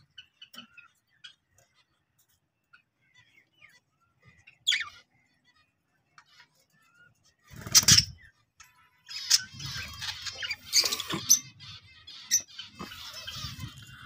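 Budgerigars in an aviary calling: a single high chirp about five seconds in, a brief noisy burst near eight seconds, then a few seconds of busier chirping and warbling chatter.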